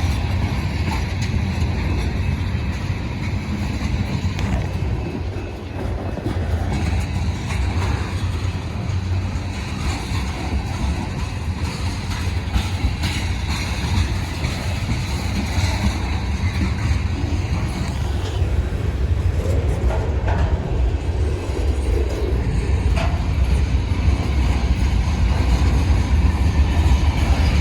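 BNSF manifest freight train rolling by, a steady heavy rumble of locomotives and railcars on the rails.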